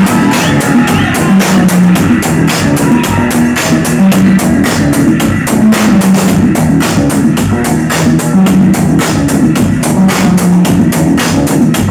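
Loud live music with a steady, driving drum beat and a heavy low bass line, heard from the crowd at a concert.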